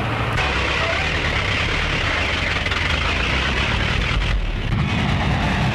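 Motor vehicle engine running steadily on an early film soundtrack, a continuous noisy rumble that changes abruptly about half a second in and again a little after four seconds.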